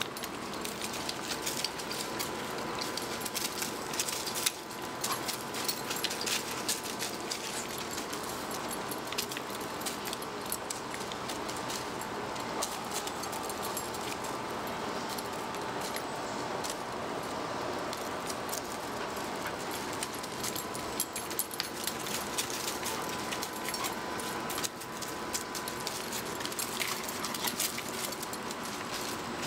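Puppies running and playing: the metal tags on their collars jingling in quick, irregular clinks, with rustling from their movement.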